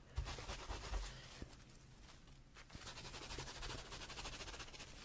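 Thumbs and fingertips scrubbing shampoo-lathered hair and scalp: a faint, fast, fine scratching that drops away briefly about two seconds in.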